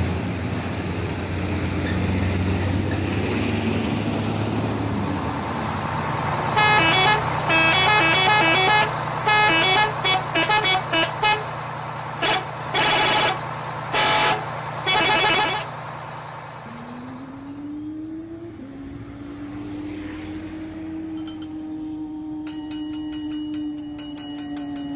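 A vehicle engine running, then a long run of horn honks: some held, some quick short toots in a row. After the honking, a low steady tone slides up and holds, with a fast clicking starting near the end.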